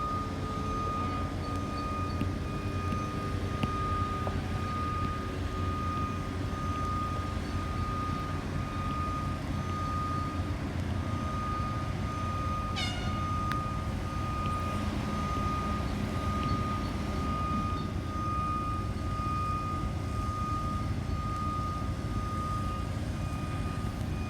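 Steady low rumble of urban traffic and construction noise, with a thin steady whine throughout and a brief high squeal falling in pitch about halfway through.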